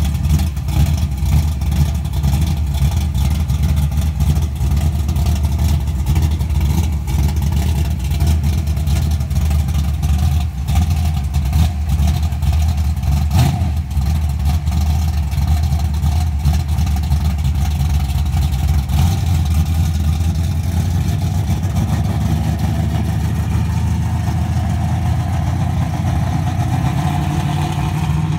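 Dodge Challenger's V8 running at idle with a pulsing exhaust rumble. In the last third the note shifts and rises as the car pulls away and drives off.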